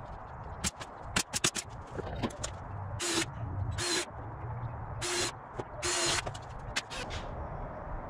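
Knocks and clatter of MDF panels being handled and set in place on the enclosure, then four short hissing bursts about a second apart.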